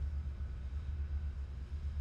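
Deep, pulsing low rumble of Union Pacific Big Boy No. 4014, a 4-8-8-4 steam locomotive, with almost nothing higher-pitched above it.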